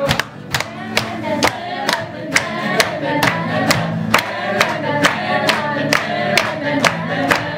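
A small group clapping a steady beat, about two claps a second, while singing together in unison.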